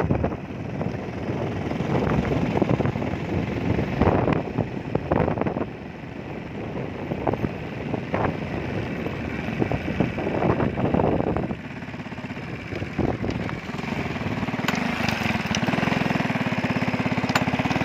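A vehicle's engine running, with uneven rumbling gusts of wind buffeting on the microphone while moving. From about three-quarters of the way in, a steady, evenly pulsing engine sound comes to the front.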